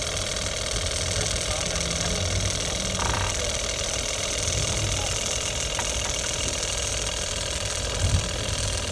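An engine running steadily with a fast, even beat.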